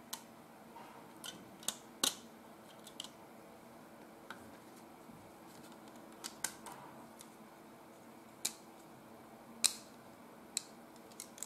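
Hands fitting rubber bands around a small bolted frame: scattered sharp clicks and snaps, as the bands spring against the frame and the parts knock together, irregular and a second or more apart.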